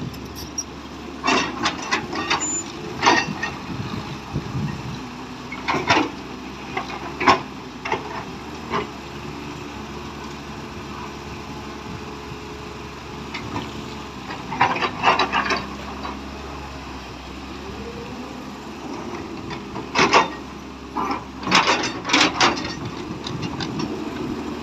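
Heavy excavator's diesel engine running steadily, with clusters of sharp clanks and knocks several times over.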